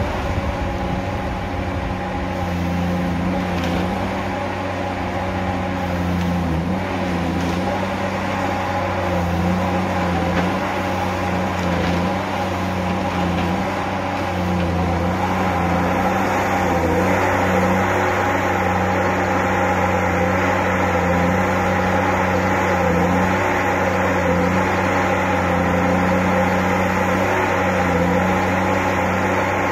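Tigercat H822C tracked harvester's diesel engine running steadily with its hydraulics working, a steady low drone that grows a little louder about halfway through as the boom swings away.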